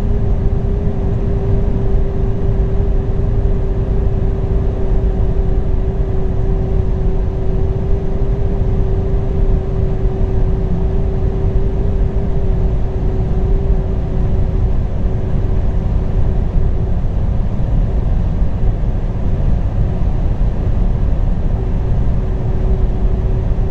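Alfa Romeo 147 1.9 JTDm at high speed: heavy steady road and wind rumble with a steady whine on top that the owner hears from the right side of the car and thinks comes from the wheels. The whine weakens about fourteen seconds in and after that comes and goes.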